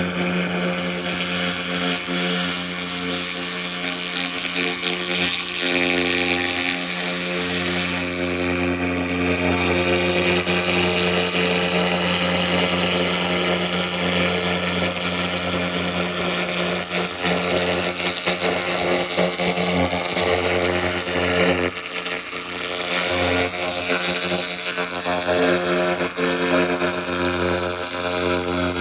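SFX 2000 laser rust remover cleaning metal: a dense crackling hiss of rust being blasted off, over a steady hum from the machine.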